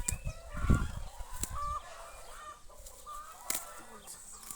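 Chickens clucking, a series of short calls, with low thumps on the microphone in the first second.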